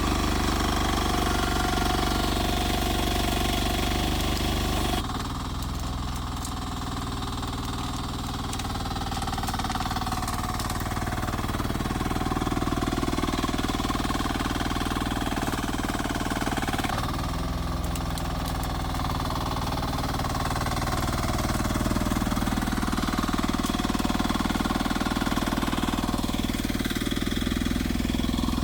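Rippa R10 mini excavator's small engine running steadily while the machine works. The sound changes abruptly about five seconds in and again near seventeen seconds.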